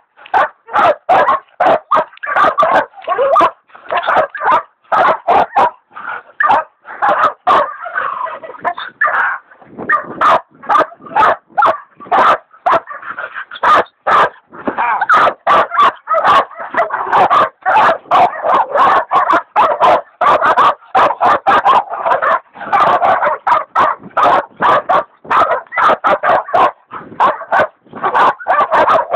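Hog dogs baying a big wild sow at bay: rapid, continuous barking with no let-up.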